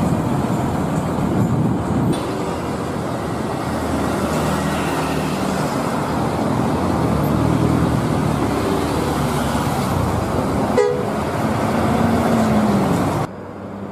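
Street traffic around a large coach bus: engine noise with horn honking over it. The sound cuts off suddenly near the end.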